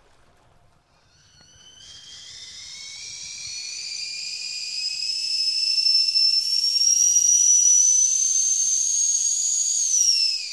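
A high whistling tone that swells in slowly and rises steadily in pitch as it grows louder, then slides down in pitch and stops near the end.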